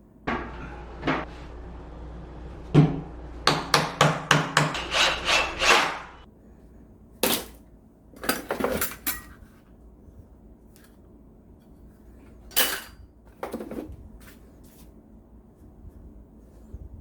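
Hand tools being handled and set down on a hard surface, making clicks and knocks. A quick run of about seven clicks comes a few seconds in, and single knocks follow now and then.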